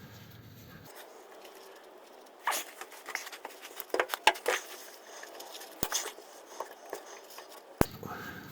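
Scattered clicks, taps and scrapes of hand tools being worked around the gearbox rear mount under a car, with a sharp click about six seconds in and another near the end.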